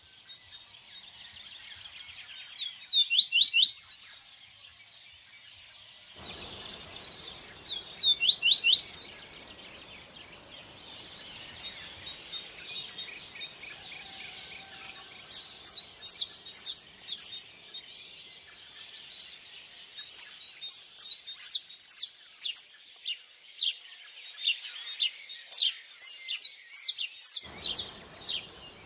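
Songbirds chirping: two loud bursts of quick rising notes in the first ten seconds, then long runs of short, fast chirps through the second half. A faint rush of stream water comes in about six seconds in and cuts off abruptly near the end.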